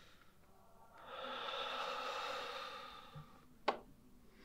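A man's long, heavy sigh, a breath out that swells and fades over about two seconds, followed near the end by a single short, sharp click.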